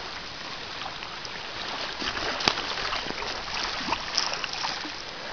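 A hooked northern pike splashing and thrashing at the surface close to shore, over a steady wash of lapping water, with a few splashes around four seconds in. A single sharp click comes about two and a half seconds in.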